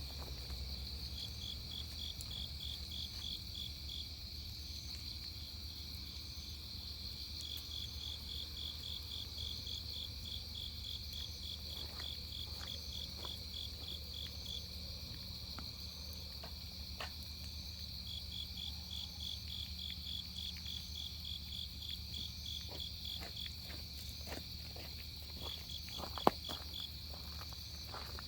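Crickets singing on an autumn night: a steady high trill with a second insect chirping in runs of about four or five pulses a second. Scattered faint crackles are heard in the second half, with one sharp pop near the end.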